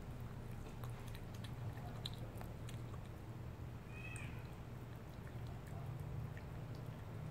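A cat's single short, faint, high mew about four seconds in, over a steady low hum and a few faint clicks.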